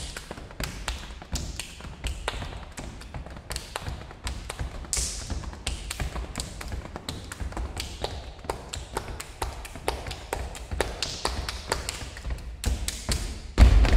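Two performers playing body percussion: a fast, dense rhythm of sharp hand claps and taps with dull thumps of hands striking the body underneath. Just before the end the playing suddenly gets much louder, with heavy thumps.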